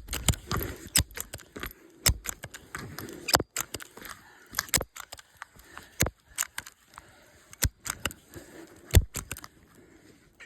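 Handling noise: a string of irregular sharp clicks and knocks with light rustling, a few of them louder than the rest.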